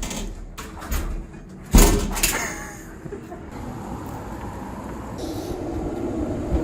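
A door knocking open and banging shut, the loudest bang about two seconds in, followed by a steady hum of street traffic.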